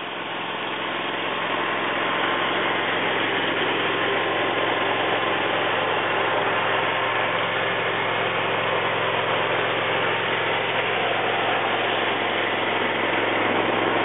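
Small air-cooled engine of a motorized picnic table running steadily at a low, even idle. It comes up in level over the first couple of seconds.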